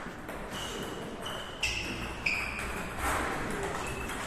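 Table tennis rally: sharp clicks of the celluloid ball striking bats and table, with several short high-pitched squeaks between the hits.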